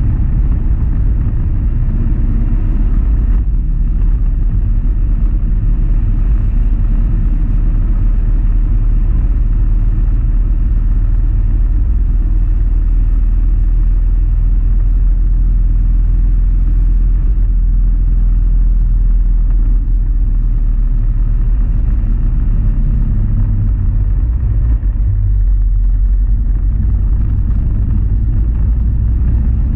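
A motorcycle on the move at steady road speed: its engine running under a heavy, steady low rumble of wind on the microphone.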